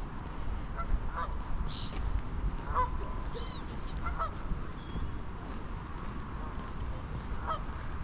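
Waterfowl giving short, scattered honking calls, about five in all, with two brief high bird chirps about two and three and a half seconds in, over a steady low rumble.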